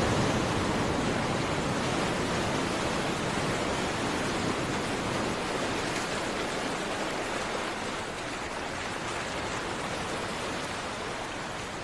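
Steady rushing noise of water, like surf, with no distinct wave breaks, slowly fading.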